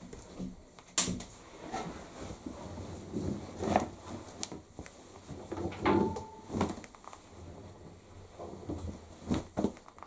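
Dried shirts being pulled out of a condenser tumble dryer's drum: irregular fabric rustling and handling knocks, with a sharp click about a second in and two more clicks near the end.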